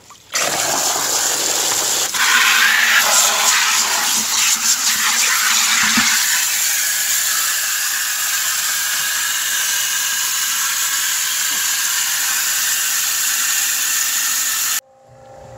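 Garden hose spray nozzle jetting water into a plastic bucket already part full: a loud, steady rushing splash, rougher in the first few seconds, that starts suddenly and cuts off suddenly near the end.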